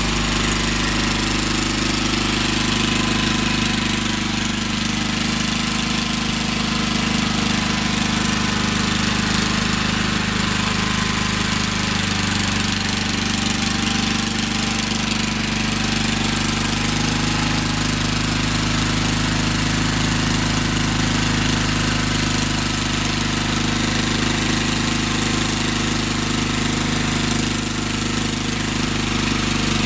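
Gravely 20-G Pro garden tractor's engine running steadily while it plows snow, its pitch shifting slightly about twelve seconds in.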